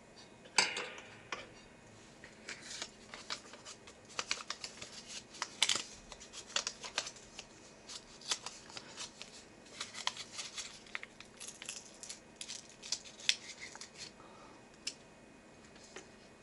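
Irregular clicks and short rustles of small objects or paper being handled, with a sharper snap about half a second in.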